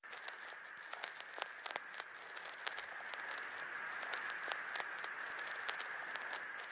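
Crackle and hiss of an old recording: a steady thin hiss with scattered, irregular clicks and pops.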